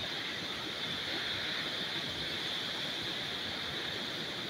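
Muddy floodwater of the Sutlej River rushing steadily under a bridge, an even, unbroken rush of water.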